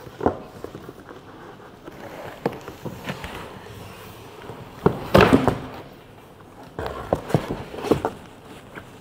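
Cardboard packaging being handled: scattered knocks and scuffs, with a loud scraping rustle about five seconds in as the white inner box is slid against the cardboard carton, then a few more knocks.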